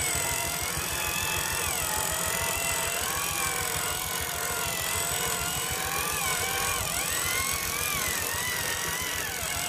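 Electric drive motor and gearbox of an RC 6x6 timber truck whining, the pitch rising and falling with the throttle, over a low rattling rumble from the running gear.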